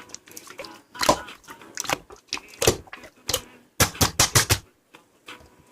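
Slime being squished and stretched by hand, making irregular wet clicks and pops, with a quick cluster of them about four seconds in.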